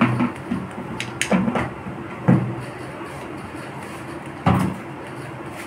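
A kitchen knife cutting through soft steamed khaman dhokla in a steel steamer plate, its blade knocking and scraping against the steel as each cut is made. A handful of dull knocks, the strongest about two seconds in and again near four and a half seconds.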